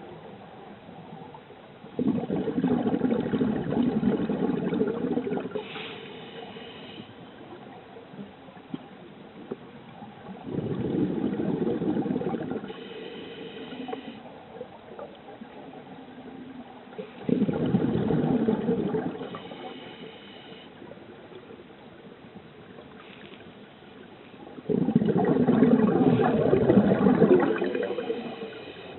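Scuba diver breathing through a regulator: four long bursts of exhaled bubbles gurgling, about every seven seconds, with a faint whistling hiss of inhalation through the regulator between them.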